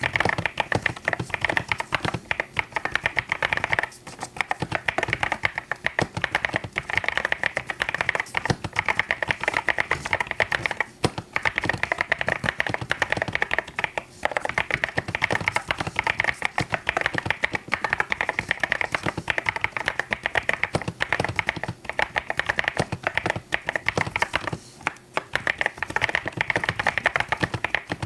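Fast, continuous typing on a mechanical keyboard: a dense stream of key clacks with a few brief pauses.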